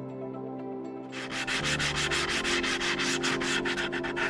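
Sandpaper rubbed by hand along the cut edge of an old wooden plank: rapid back-and-forth scratchy strokes, about four a second, starting about a second in over soft background music.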